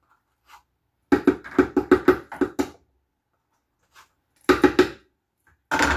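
Quick hollow knocking against a plastic blender jar, about a dozen rapid knocks over a second and a half, then two shorter bursts near the end.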